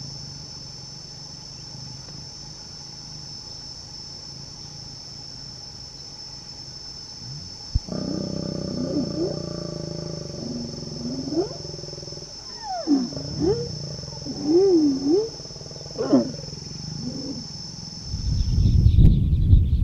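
African lions growling and snarling during copulation. From about eight seconds in comes a run of rough pitched growls that rise and fall in pitch, several in quick succession, ending as the pair separates. A loud low rumble follows near the end.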